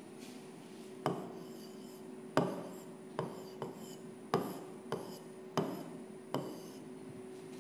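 Stylus tapping and scratching on the glass screen of an interactive touchscreen whiteboard during handwriting: about eight short, sharp taps at uneven intervals, each with a brief scrape.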